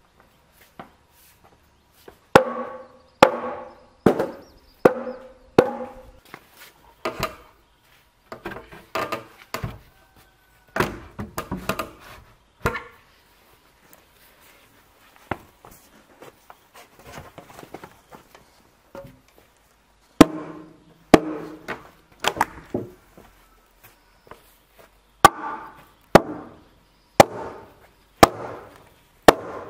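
Hammer blows on timber, driving a squared crossbeam's tenon into the mortise of a round log post in a wooden house frame. Sharp ringing knocks, about one a second, come in runs of several strikes with pauses between.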